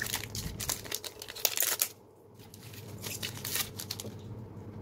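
Foil trading-card booster pack wrapper crinkling and being torn open, a run of sharp crackles that is loudest about a second and a half in, with a short lull after.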